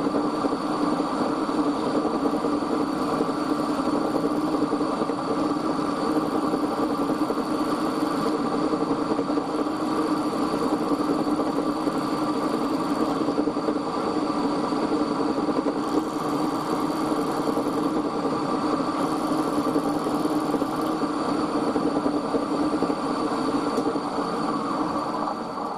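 Milling machine running, its end mill taking a light cut along the edge of a brass workpiece: a steady machine hum with a thin high whine, fading out near the end.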